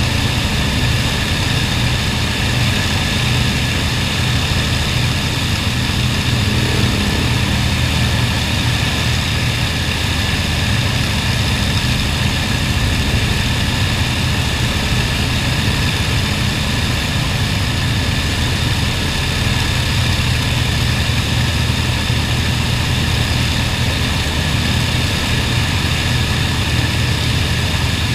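Avro Lancaster bomber's four Merlin V12 piston engines running steadily on the ground, propellers turning, with no change in engine speed.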